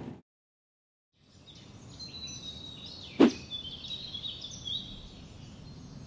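After about a second of silence, faint outdoor ambience with small birds chirping high and thin. About three seconds in comes one short, sharp swish.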